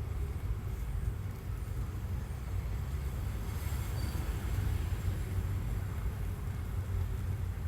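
Mk6 Volkswagen GTI running with a steady low rumble and a faint metallic grinding sound over it. Once the car is warmed up the grinding is much less noticeable but still present, and the owner is worried by it.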